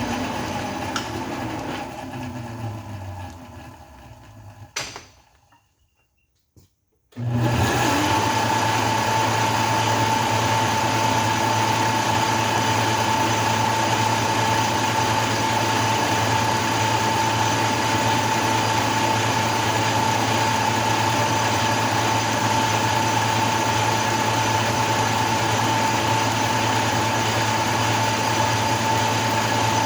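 Metal lathe spinning down, its pitch falling as it coasts to a stop, then near silence for a second or two; about seven seconds in it starts up abruptly and runs at a steady speed with a low hum and a constant high whine.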